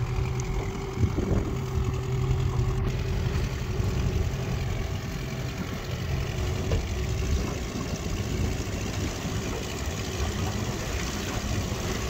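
Small Suzuki outboard motor running steadily, pushing a small aluminium boat along, with a steady rush of wind and water over it.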